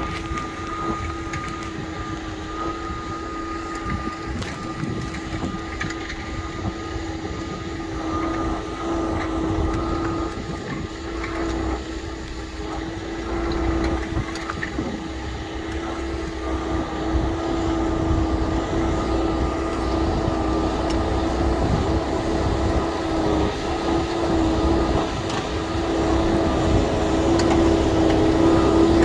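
New Holland TM 190 tractor's diesel engine running steadily under heavy load, pulling a subsoiler through dry ground. Growing louder toward the end.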